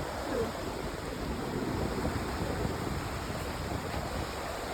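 Steady rushing of a river in flood, fast high water running without a break.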